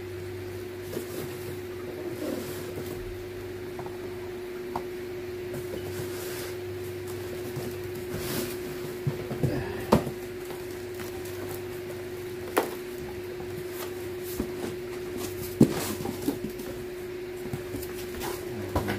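Cardboard box flaps and plastic-wrapped fan parts being handled: soft rustling with scattered sharp knocks and clicks, the strongest a few at about ten, twelve and fifteen seconds in, over a steady low hum.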